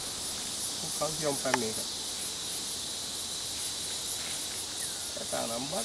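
Steady high-pitched chorus of insects with a constant thin tone. Short snatches of people talking come in about a second in and again near the end.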